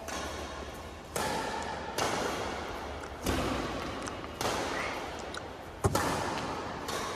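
Badminton rackets striking a Yonex Mavis 350 nylon shuttlecock back and forth in a rally: six sharp hits roughly a second apart, each echoing in a large bare hall, the hardest near the end.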